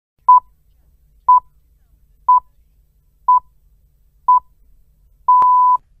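Radio time-signal pips marking the top of the hour, in the style of the Greenwich Time Signal: five short beeps a second apart on one steady tone, then a longer final beep.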